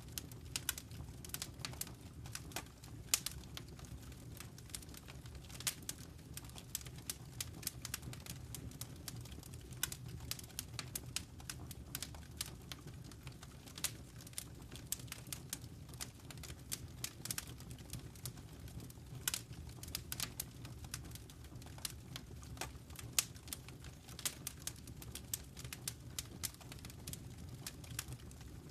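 Fire crackling in a fireplace: irregular sharp pops and snaps, several a second, over a steady low rumble of burning.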